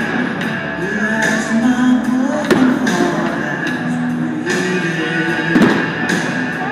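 Music with guitar and singing, with sharp hits about two and a half and five and a half seconds in.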